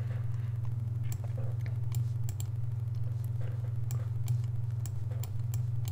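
Scattered computer mouse clicks, single and in quick pairs, over a steady low hum.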